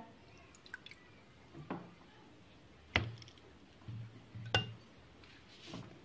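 Juice poured from a glass into a clear plastic blender jar: faint liquid sounds with a few drips and light clicks, the sharpest about three seconds in.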